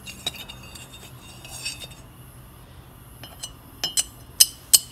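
Small steel tool clinking against the metal scroll wraps of an opened scroll compressor as it is fitted into the pockets between the wraps. A few faint clicks come first, then three or four sharp, ringing clinks in quick succession near the end.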